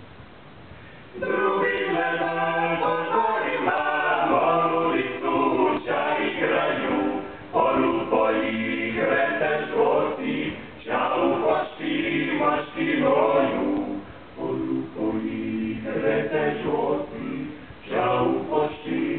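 Male vocal ensemble singing a cappella in harmony, several voices holding chords together. The singing comes in about a second in, and the phrases are separated by short breaks.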